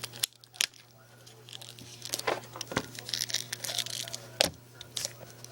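Plastic-wrapped DVD box set packaging being handled and opened: irregular crinkling and tearing with sharp little snaps, the loudest about four seconds in. A low steady hum underneath.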